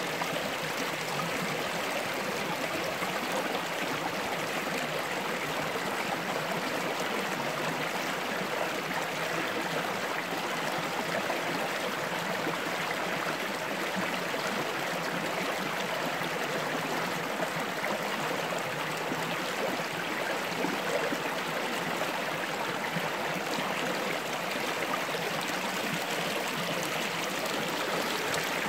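Shallow rocky stream running over stones and small cascades: a steady rush of water.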